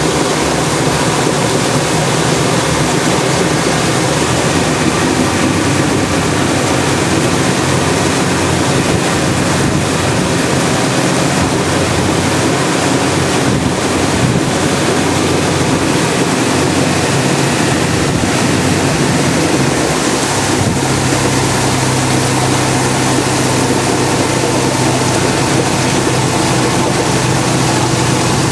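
Tour boat's engine running steadily under rushing water and wind noise on the microphone. About two-thirds of the way through, its low hum steps up and grows stronger as the boat picks up speed, throwing white water along the hull.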